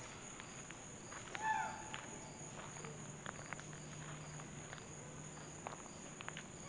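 Steady high-pitched drone of a summer insect chorus, with scattered footsteps on a dirt path. A brief falling call sounds about a second and a half in.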